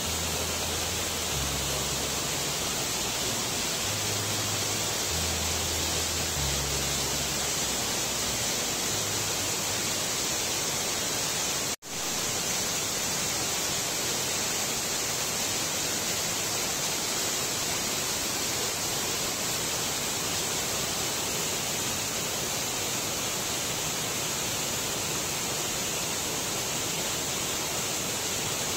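A waterfall: water pouring over rock ledges, a steady, even rushing. The sound cuts out for an instant about twelve seconds in, then carries on unchanged.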